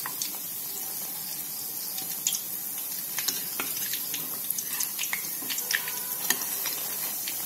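Bread-coated egg chops frying in hot oil in a kadai on low heat: a steady sizzle with scattered pops and crackles.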